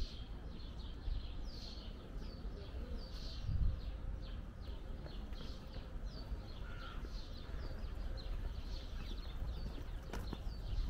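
Small birds chirping over and over in short, quick notes, against a steady low outdoor city rumble. A few sharp clacks come near the end.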